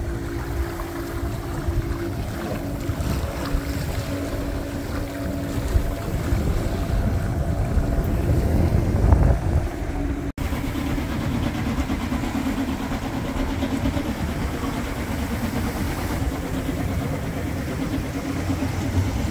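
Sailboat under way: wind buffeting the microphone over a steady low engine drone, with water washing along the hull.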